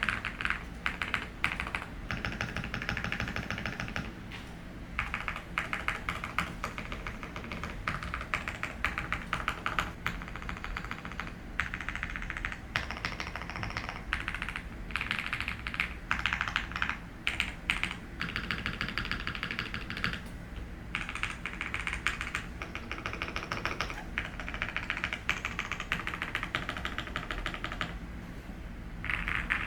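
Typing on a QK75N mechanical keyboard with WS Morandi linear switches on an FR4 plate with PE and plate foam: creamy keystroke clacks in fast runs of several seconds, with a few brief pauses. A low air-conditioner hum runs underneath.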